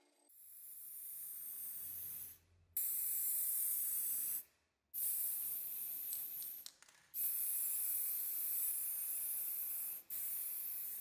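Aerosol spray paint can spraying in about five bursts of one to three seconds each, with short breaks between them; each burst cuts off suddenly.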